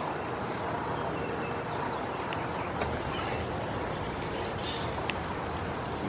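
Steady background noise with a few faint, short high chirps and a couple of sharp clicks.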